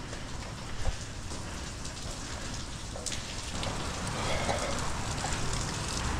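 Steady rain hiss, with a single sharp knock about a second in from the climber against the crane's steel lattice mast.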